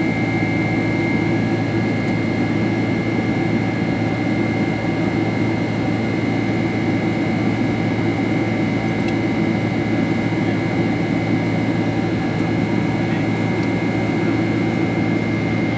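Boeing 767-300ER jet engines and airflow heard from inside the passenger cabin: a steady, even drone with a low hum and a thin high whine, unchanging throughout.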